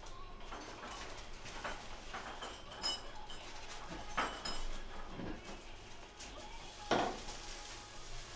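Foley sound effects of dishes and cutlery: scattered clinks and knocks, with a louder knock about four seconds in and another near the end.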